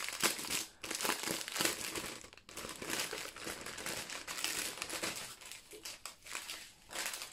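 Clear plastic wrapping crinkling and rustling in bursts as it is pulled open and off a bundle of diamond painting drill bags.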